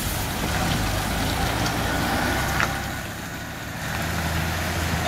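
Loaded multi-axle goods truck's diesel engine running with a low, steady hum as the truck drives slowly past and away. The hum drops a little about three seconds in, then strengthens again near the end.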